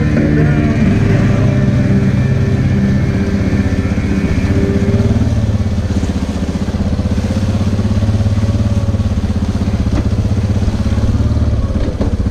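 Yamaha ATV engine running at low trail speed, its note dropping a few seconds in and then holding steady.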